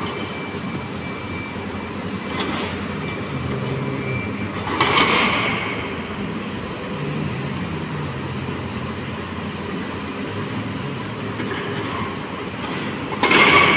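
Heavy earth-moving machines working in a stone quarry: a backhoe loader and an excavator with their diesel engines running steadily. Two louder, harsher bursts stand out, one about five seconds in and one near the end.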